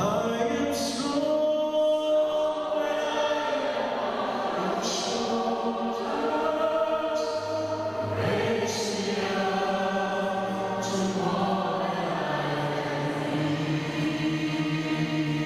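A male solo singer sings into a microphone with a mixed choir singing behind him, sung words coming through every few seconds.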